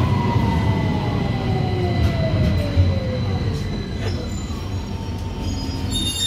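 Victoria line 2009 Stock tube train braking into a station: the traction motors' whine falls steadily in pitch over the first few seconds as the train slows. Under it runs a steady low rumble from the carriage.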